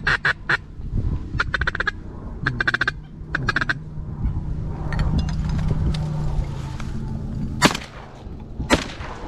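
Duck quacks in four quick strings over the first four seconds. Two sharp cracks follow about a second apart near the end.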